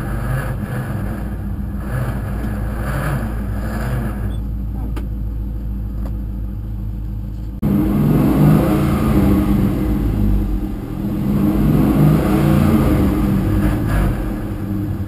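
Car with a T56 six-speed manual transmission running, engine and drivetrain noise throughout. About seven and a half seconds in it cuts abruptly to a louder stretch with more low rumble.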